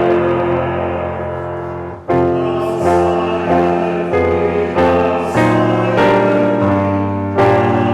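Piano playing slow, sustained chords. The sound fades about two seconds in, then a new chord is struck.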